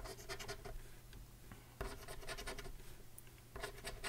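A coin scratching the coating off a paper lottery scratch-off ticket, in three short runs of quick strokes: one at the start, one about two seconds in and one near the end.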